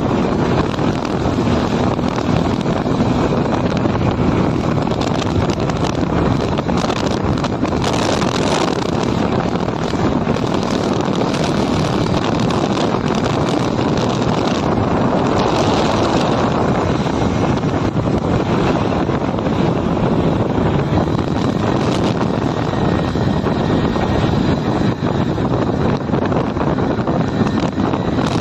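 Steady wind rush on the microphone of a phone carried on a moving Hero Splendor motorcycle, with the bike's running and road noise underneath.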